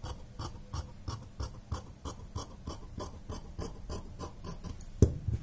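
Large steel tailoring scissors snipping through blouse fabric in quick, even cuts, about four or five a second, with a louder knock about five seconds in.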